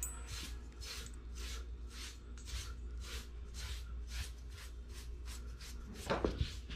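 Deshedding stripping blade drawn through a Blue Bay Shepherd's thick double coat, pulling out the loose undercoat in quick, even strokes of about three a second. A brief louder sound comes near the end.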